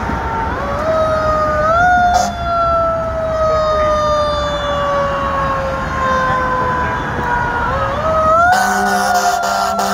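Fire apparatus siren approaching: it winds up in steps, slowly winds down over several seconds, and winds up again near the end. A short horn blast comes about two seconds in and a long horn blast fills the last second and a half, over steady street traffic.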